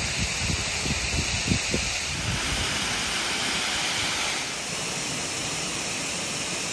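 Steady rushing of running water from a rain-swollen creek and waterfall, with a few low thumps in the first couple of seconds; the rush drops slightly in level about four and a half seconds in.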